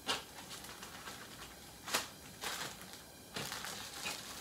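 Small first-aid packets and wrappers being handled and set down on a plastic folding table: several light clicks and rustles, the sharpest about two seconds in.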